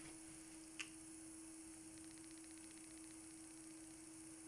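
Near silence: room tone with a faint, steady electrical hum, and a single small click about a second in.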